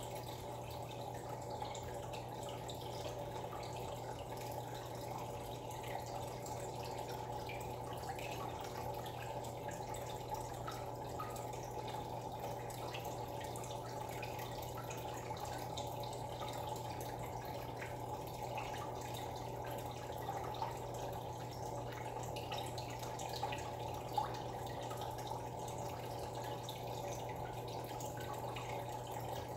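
Aquarium filter outflow trickling and dripping into the tank water, steady throughout, over a constant low hum.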